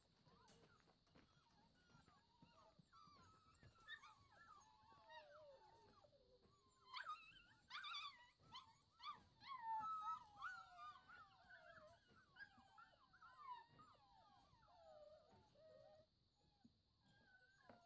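A litter of seven-week-old Brittany puppies whining and yipping, many short overlapping whines that slide up and down in pitch. The whines are faint, grow busier and louder about seven seconds in with a few higher yelps, then thin out near the end.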